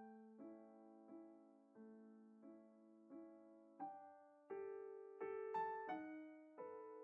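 Quiet background piano music: slow, evenly spaced notes and chords, each struck and left to fade, with the notes coming a little closer together in the second half.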